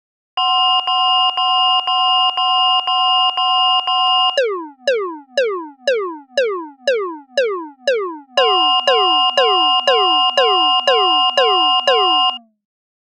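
Electronic railroad crossing warning bell sounds: a steady ringing tone of several pitches pulsing about twice a second. A few seconds in it gives way to a run of quick falling 'pew' tones, then both sound together until they stop abruptly near the end.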